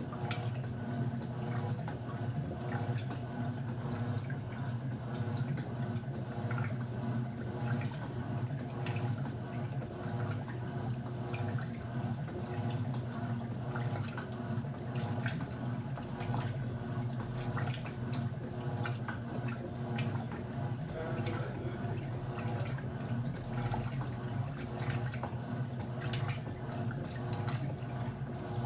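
Turbo LT11F 10 kg washing machine running its wash with a load of floor cloths: a steady motor hum with water sloshing and splashing in the tub.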